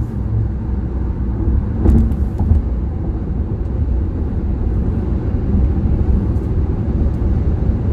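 Steady rumble of road and engine noise inside the cabin of a SsangYong Tivoli Air cruising at highway speed, with one brief knock about two seconds in.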